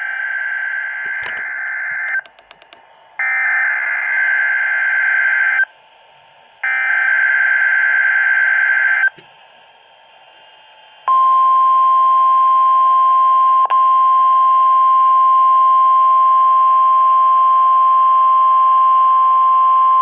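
NOAA Weather Radio Required Weekly Test sounding from a Midland weather radio's speaker. It opens with three bursts of warbling SAME header data tones about a second apart. After a short pause comes the steady single-pitch warning alarm tone, lasting about nine seconds with one brief dropout near its start.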